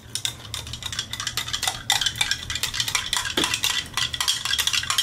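Metal spoon stirring electrolyte powder into a tall glass of water, clinking rapidly and repeatedly against the glass.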